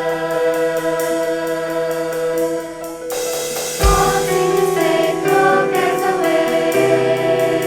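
A choir singing held, sustained chords. There is a short dip about three seconds in, then a new chord enters with a low thump just before the fourth second.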